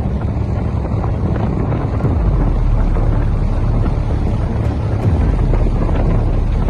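Wind buffeting the microphone over the low, steady rumble of a boat's engine.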